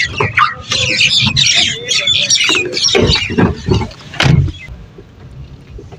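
A crowd of small birds chirping busily, with knocks and clicks from a car door as someone climbs into the car. The door shuts with a heavy thump a little over four seconds in, and the sound turns quieter and muffled.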